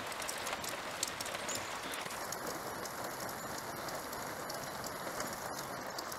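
Steady rain falling: an even hiss scattered with many short, sharp ticks of drops striking.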